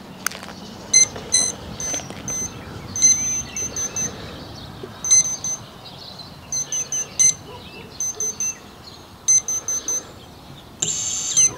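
Brushless drone motor and its ESC giving short, high-pitched beeps in quick groups, as an ESC signals through the motor windings when it is powered and armed. Near the end the motor starts to spin up with a rising whine.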